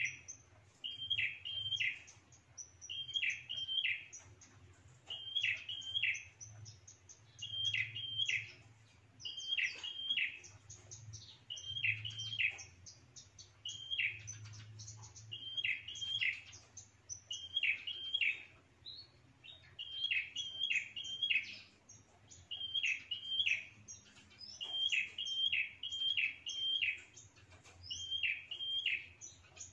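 Caged red-headed prenjak calling steadily, a sharp doubled chirp repeated about once a second, with fainter high chips between the calls. It is the territorial call used as a pikat (lure) to draw rival prenjak in.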